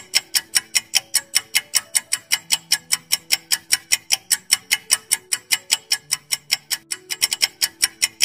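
Countdown-timer sound effect: a fast, even clock ticking at about five ticks a second, over a soft melody of held low notes.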